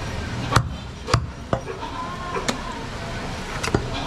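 Heavy butcher's knife knocking against a wooden chopping block while goat meat is cut and handled: several sharp knocks at irregular intervals, the loudest about half a second in, over a steady background hum of market noise.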